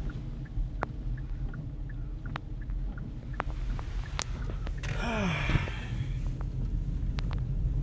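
Steady low road and engine rumble inside a moving car, with scattered light clicks. About five seconds in, a brief pitched sound falls in pitch.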